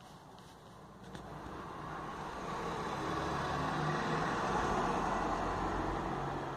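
A car passing by, its road noise swelling for a few seconds and starting to fade near the end.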